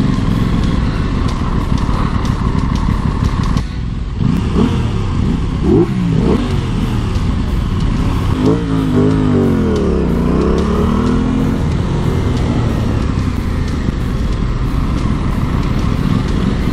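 Aprilia Tuono 660's parallel-twin engine running under the rider, with wind rush on the helmet microphone. From about four seconds in, the revs climb and drop sharply several times as the bike pulls away hard in a launch, which the rider himself rates as badly done.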